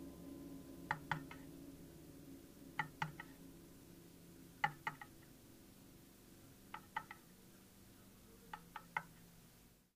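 Tail of a music track fading out: a held low drone dies away under clusters of two or three sharp clicks that come about every two seconds, and the sound cuts off just before the end.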